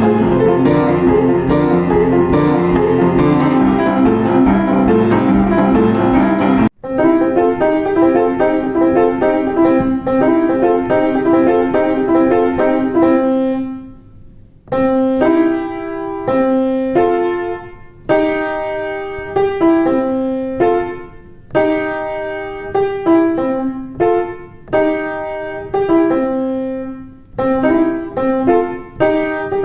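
Boogie woogie piano: a full two-handed passage with a rolling bass for about seven seconds, then it breaks off and a repeated right-hand chord figure is played on its own, without the bass, in short phrases with brief pauses.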